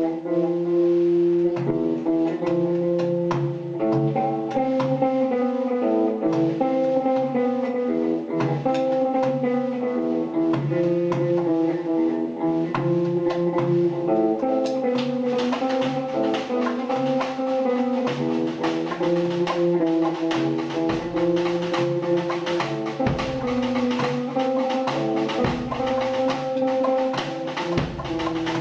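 Instrumental music: a plucked-string melody over drums. About halfway in, the drumming fills out, and deep bass thumps come in every two to three seconds near the end.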